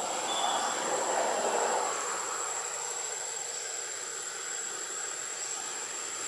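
Steady high-pitched insect drone over a background hiss, with a louder rushing noise for the first two seconds.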